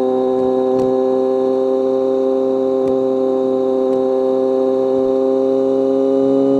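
BMW K1200R's inline-four engine and exhaust running under steady load while riding, its pitch climbing slowly as the bike gently gains speed.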